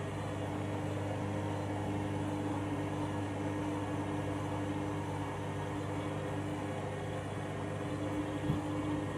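Washing machine humming steadily in the drain phase of a wash cycle, with its drain pump running and the drum fairly balanced.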